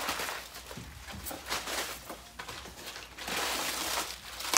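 Heavy bubble wrap rustling and crinkling as it is handled and pulled out of a cardboard box, louder in the last second or so.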